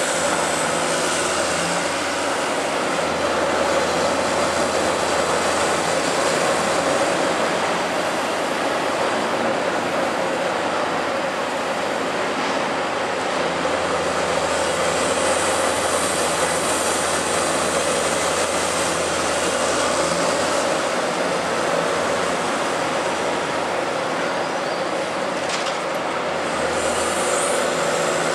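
Caterpillar 345C L hydraulic excavator running steadily, a continuous diesel drone with a high hiss from the machine that swells and fades a couple of times.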